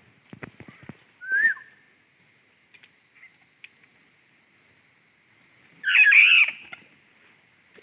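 Bird calls: a short whistled note that rises and then falls about a second and a half in, and a louder, more tangled call about six seconds in, over a steady high-pitched background drone.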